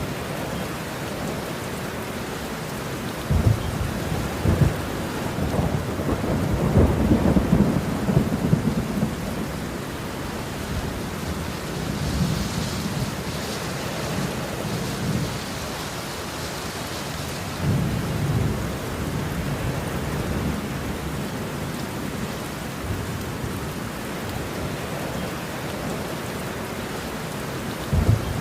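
Steady heavy rain with rolling thunder. A long rumble with sharp cracks swells from about three seconds in to nine, a shorter rumble comes about eighteen seconds in, and a sharp crack sounds near the end.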